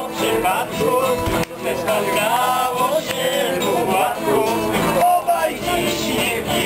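A small group singing a song together, accompanied by two strummed acoustic guitars.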